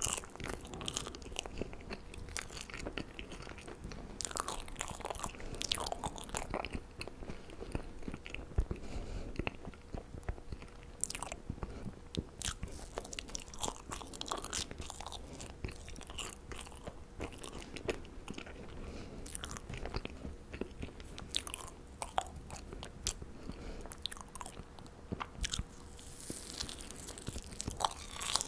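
Marshmallows being bitten and chewed close to the microphone, with frequent short, irregular mouth clicks and smacks.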